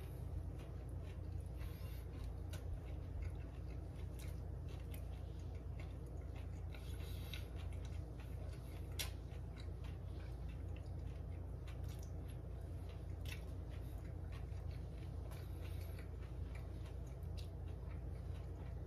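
A person chewing a mouthful of toasted sandwich, with scattered soft clicks and one sharper click about halfway, over a steady low hum.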